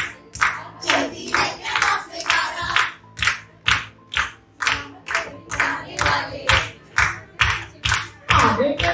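A group of women singing a song together while clapping their hands in a steady beat, about two to three claps a second.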